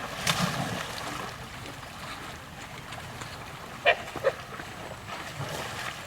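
A dog barks twice in quick succession, short sharp barks about four seconds in. There is a brief noisy burst just at the start.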